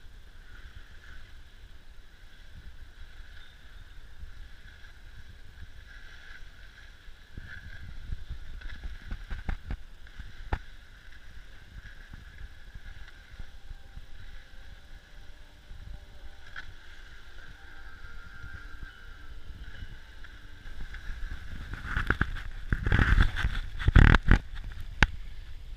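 Skis sliding over packed snow while being towed up a surface drag lift: a steady hiss with a low rumble from the moving camera. Near the end comes a cluster of loud knocks and bumps as the skier comes off the lift at the top and turns.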